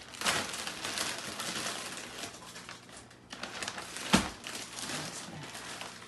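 Plastic food bags crinkling and rustling as they are handled and filled, with one sharp knock about four seconds in.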